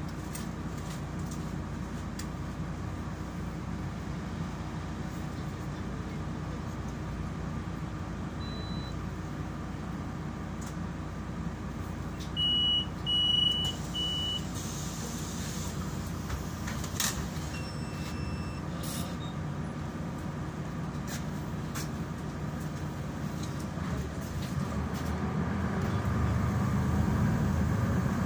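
Inside a Solaris Urbino 12 III city bus, its engine idling steadily while the bus stands. About twelve seconds in come three short high beeps followed by a brief hiss, and near the end the engine note rises as the bus pulls away.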